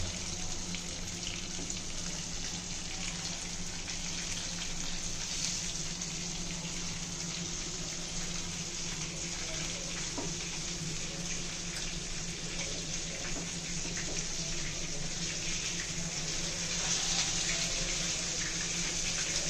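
Barramundi pieces shallow-frying in oil in a non-stick pan: a steady sizzle with faint crackles, and now and then a spatula scraping as the fish is turned. A low steady hum runs underneath.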